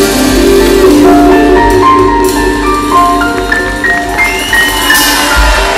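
Live band with saxophone and double bass playing the closing bars of a song: long held notes, then a run of single notes climbing in pitch in the second half.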